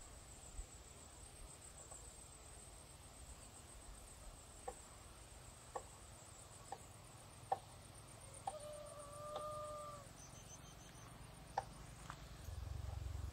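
Faint rural ambience: a high, rapidly pulsing insect chirring through the first half, a few short sharp animal calls, and one held animal call lasting about a second and a half near the middle. A low rumble comes in near the end.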